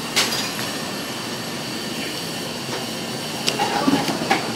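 Steady, even background din of a street-food eatery, with a sharp click about a quarter of a second in and a few lighter clicks near the end.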